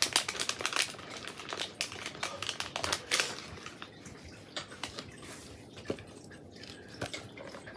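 Crisp crackling and crinkling at close range as toffee apple and cinnamon popcorn is eaten and its packet handled. The sound is busiest in the first three seconds, then thins to a few scattered clicks.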